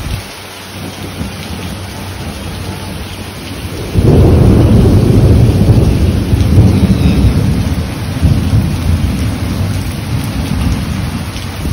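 Heavy hurricane rain pouring steadily. About four seconds in, a loud low rumble sets in suddenly and carries on, easing a little toward the end.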